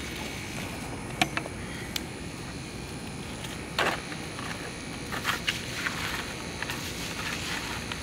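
Scattered short scrapes and taps of a broom and plastic dustpan on concrete, sweeping up burnt debris, over a steady low background rumble.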